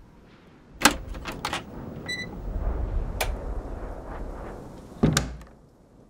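Knocks and clatter of someone moving about a woodworking shop. There is a sharp bang about a second in, a few lighter knocks, a short squeak about two seconds in, a low rumble, and a second bang near the end.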